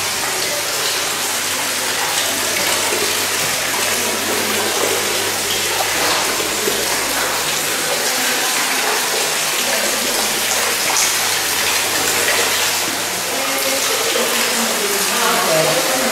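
Steady rush of running water, with several people's voices faintly heard near the end.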